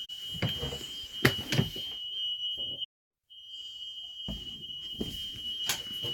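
Fire alarm sounding one continuous, steady, high-pitched tone, going off with no fire or smoke: a false alarm. A few sharp knocks sound over it, and the sound drops out completely for a moment about three seconds in.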